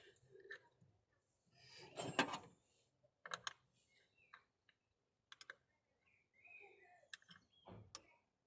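Quiet, scattered clicks and light knocks of a spanner, nut and washers being handled while a kill switch is bolted onto a car battery terminal.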